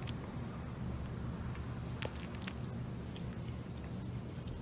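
Small bell on a dangling string cat toy jingling in a quick flurry about two seconds in as the toy swings, over a steady high-pitched tone.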